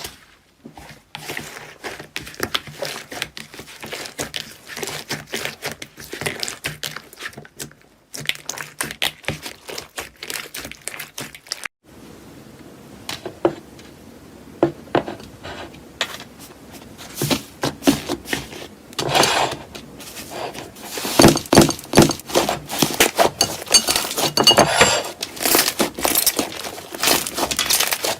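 Close-miked ASMR handling sounds: rapid, irregular crackling and clicking from a soft material being pressed or cut. The sound breaks off briefly twice between clips and grows louder and busier in the last third.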